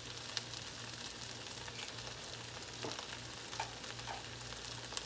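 Chicken igado sizzling in a frying pan on the stove, a steady hiss with a few light clicks of a utensil against the pan.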